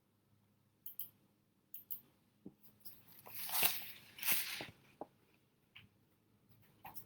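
Marker scratching on paper, with small handling clicks. There are a few short ticks in the first two seconds, then a longer run of scratchy rubbing strokes from about three to five seconds in.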